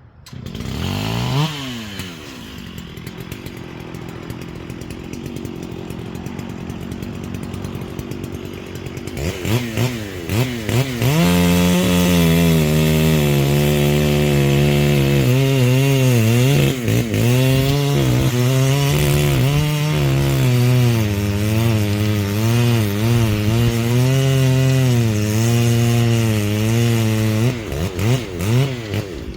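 Two-stroke chainsaw revving up about a second in and running at a lower, steady speed for several seconds. From about ten seconds in it runs at full throttle, its pitch sagging and recovering again and again as it cuts into a dead pine. Near the end it drops to short throttle blips.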